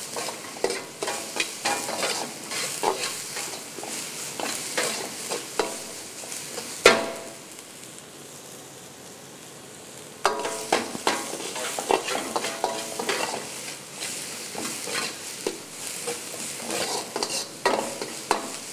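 Metal ladle scraping and clanking against a black kadai as onions and tomatoes are stirred and sizzle in hot oil. About seven seconds in, a sharp knock; then for about three seconds only the sizzle is heard before the scraping starts again.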